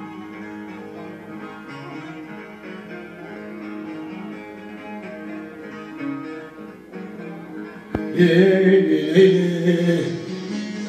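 Bağlama (long-necked Turkish lute) playing an instrumental passage of a semah tune, the plucked melody over sustained drone notes. About eight seconds in, after a sharp click, the music becomes markedly louder and fuller.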